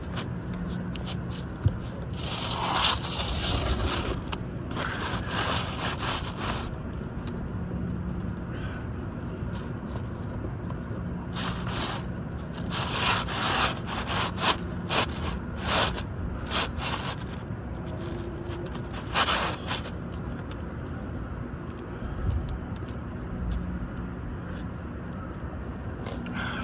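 A new asphalt shingle scraping as it is pushed and worked up under the overlapping shingle course, in repeated scraping strokes, some a second or two long. A single sharp click comes about two seconds in.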